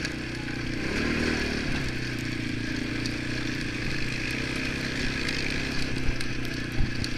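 ATV engine running steadily at trail-riding speed, heard from the rider's seat. A couple of sharp knocks near the end.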